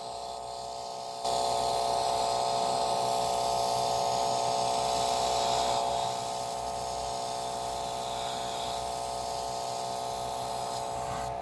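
Airbrush spraying paint: a steady hiss of air that starts suddenly about a second in and eases off slightly about six seconds in, over the constant hum of the small airbrush compressor.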